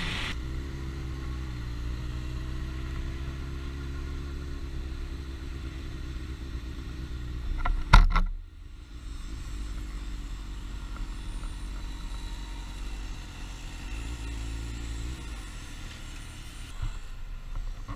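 2006 Suzuki GSX-R1000 sport bike engine with a Yoshimura exhaust running at low revs while the bike rolls slowly. A single sharp knock comes about eight seconds in.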